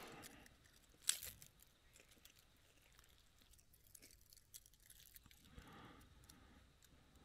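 Near silence, broken by one short sharp click about a second in and a few faint ticks after it.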